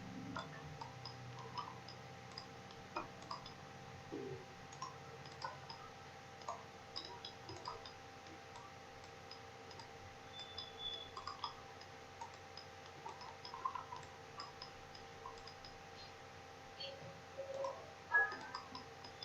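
Computer mouse clicking faintly at irregular intervals, a few clicks a second, over a faint steady hum.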